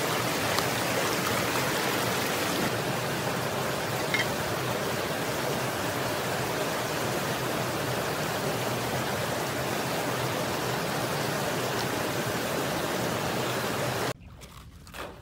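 Shallow stream rushing steadily over rocks, an even hiss of running water; it cuts off abruptly about a second before the end.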